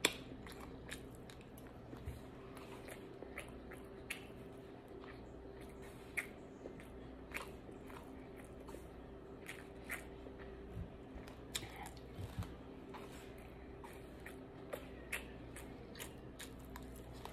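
A person chewing a mouthful of shrimp fried rice with the mouth closed: soft, irregular mouth clicks and smacks scattered throughout, over a faint steady hum.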